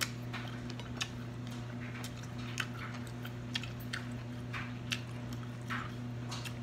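Metal fork and knife clinking and scraping on a ceramic plate while cutting grilled ham and pineapple: light, scattered clicks roughly once a second over a steady low hum.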